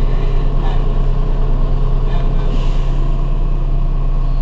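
Heuliez GX 127 city bus's diesel engine idling at a standstill: a steady low drone with a slight regular throb, about five pulses a second.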